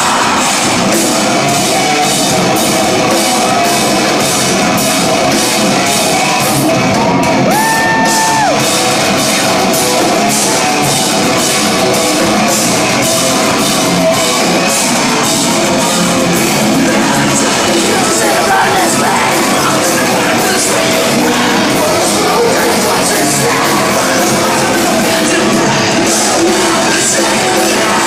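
Post-hardcore rock band playing live and loud: amplified guitars, a steady drum beat and singing, with the crowd shouting and singing along in a large hall.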